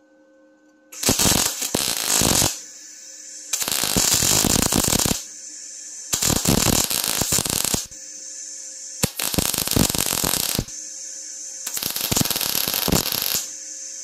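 MIG welder running on CO2 shielding gas, laying short weld runs: the arc crackles in five bursts of about a second and a half each, with short pauses between, starting about a second in. A quieter steady hum carries on between the runs.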